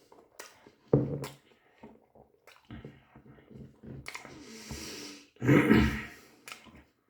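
A person eating a doner kebab: chewing and mouth noises in short, scattered bursts, with one louder noisy burst about five and a half seconds in.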